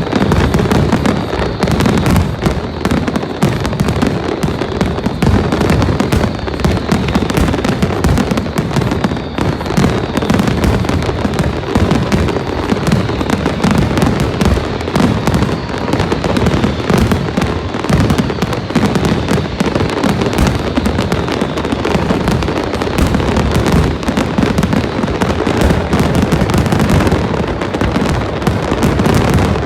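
Large fireworks display going off continuously: dense, overlapping bangs and crackles with no pause.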